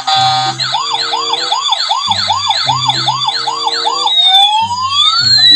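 Battery-powered toy ambulance's electronic siren sounding. It gives a brief steady tone, then a fast warble about three cycles a second, and about four seconds in it changes to a slower rising and falling wail.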